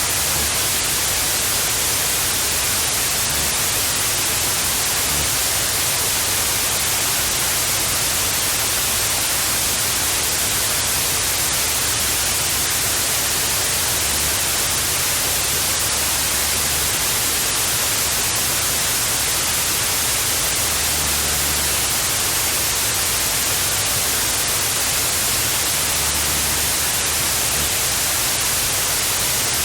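Steady hiss of analogue TV static (white noise), even and unchanging, strongest in the high treble.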